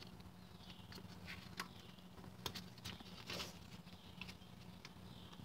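Faint scattered clicks and taps as a gloved hand presses a small cap over a brake caliper's guide-bolt hole, with a low steady hum underneath.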